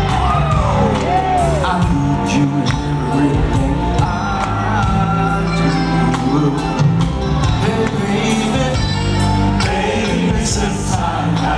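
Live R&B band with keyboards, bass guitar and drums playing a soul ballad, with male lead vocals sliding through melodic runs in the first couple of seconds.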